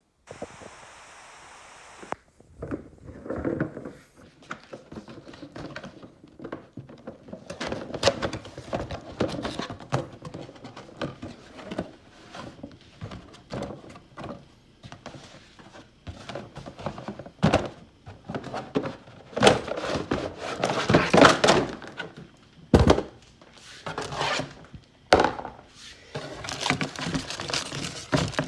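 Unpacking a cardboard box holding nested green plastic Garrett gold pans: irregular thunks, knocks and rustling as the box and pans are handled. A steady hiss runs for the first two seconds.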